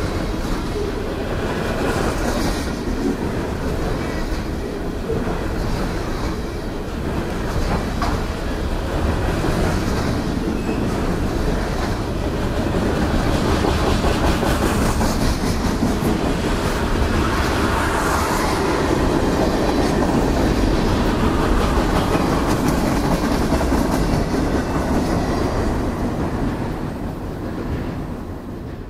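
Freight cars of a long train rolling past, a steady rumble of steel wheels on rail with repeated clacks from the wheels. The sound fades near the end as the last cars pass and move away.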